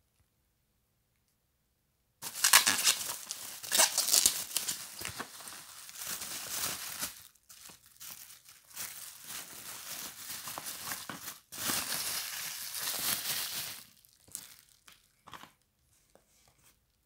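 Plastic bubble wrap crinkling and rustling as it is pulled open and handled. It starts about two seconds in and goes on in long stretches with short breaks, then dwindles to a few faint rustles near the end.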